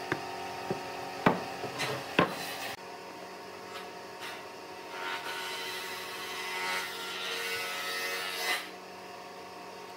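Wooden pine pieces set down on a wooden workbench with a few sharp knocks, then a squeeze bottle of wood glue pressed out along the joints with a soft hissing rasp for a few seconds.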